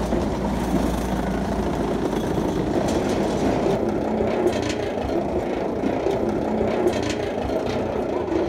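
Steady rolling rumble of wheels running over a ridged surface, with light clicks and rattles mixed in.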